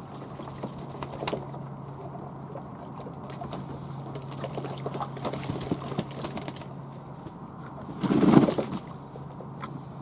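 Fantail pigeons bathing in a tub of water, splashing and flapping their wings, with a louder burst of flapping and splashing about eight seconds in.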